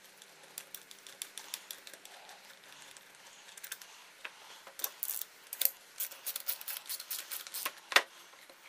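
Rapid metallic clicks and clinks of a wrench working the carburetor's manifold bolts and of the metal parts being handled. The clicks are sparse at first and crowd together from about halfway, with one sharper knock near the end.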